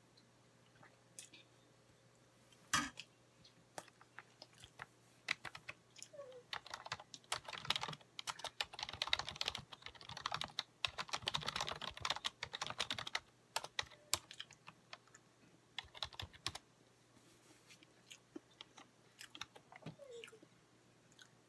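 A plastic fork clicking and scraping against a bowl while rice is scooped up, in quick runs that are busiest through the middle, with chewing in the quieter stretches.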